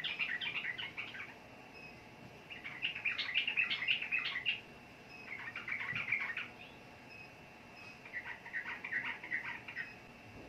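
Sooty-headed bulbul (trucukan) singing: four bursts of quick chirping notes, each one to two seconds long, with short pauses between them.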